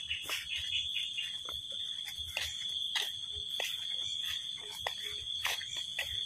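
Steady high-pitched insect chorus, with scattered sharp clicks and taps at irregular intervals.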